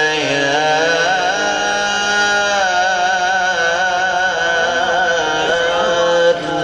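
A man's voice reciting the Quran in melodic tilawat style, drawing out long held notes with fine ornamental turns. The phrase breaks off briefly near the end.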